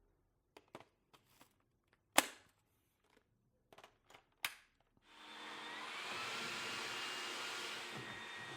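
Several sharp plastic clicks and snaps, the loudest about two seconds in. About five seconds in, the Candy SO103 cordless stick vacuum's motor starts with a rising whine and then runs steadily.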